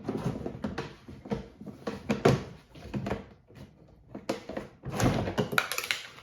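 Boxes and Christmas-decoration parts being handled and set down: irregular knocks, thuds and rustling scrapes, with a busier cluster of knocks in the second half.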